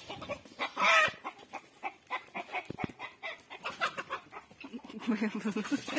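Domestic chickens clucking, with a louder squawk about a second in and a quick run of low clucks near the end.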